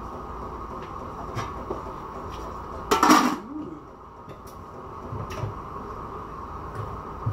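Metal kitchen utensils and cooking pots clinking and knocking on the stove, with light clicks throughout and one loud clatter about three seconds in, over a steady background hum.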